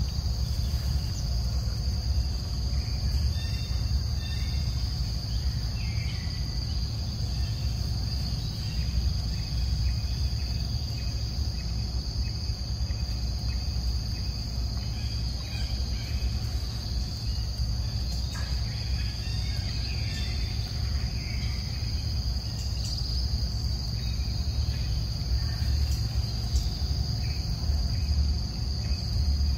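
Insects droning steadily in a high even tone over a constant low rumble, with faint scattered chirps.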